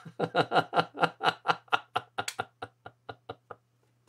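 A man laughing hard: a long run of short laughs, about five a second, growing fainter and trailing off near the end.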